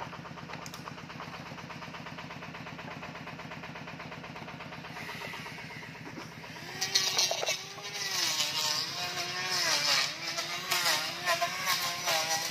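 Electric hand planer running steadily, then from about seven seconds in shaving a wooden plank: a loud hiss of cutting, with the motor's pitch sagging and recovering as it takes load.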